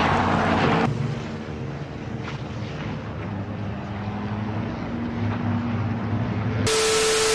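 Several race car engines running on an oval track, heard as a few steady engine tones at once; a loud hiss drops away about a second in. Near the end a loud rushing noise with one steady tone cuts in.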